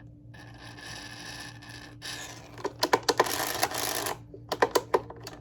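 The wheels of a Hoover Convertible upright vacuum turning just after a drop of oil, clicking and rattling irregularly in the second half, over a low steady hum. Before the clicking there is a hiss lasting about two seconds.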